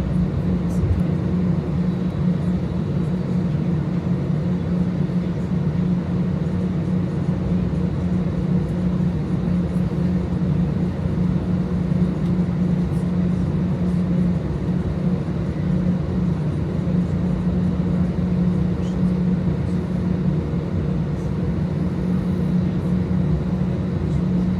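Cabin noise of an Airbus A320 with IAE V2527-A5 engines taxiing onto the runway at low thrust: a steady drone with a strong low hum.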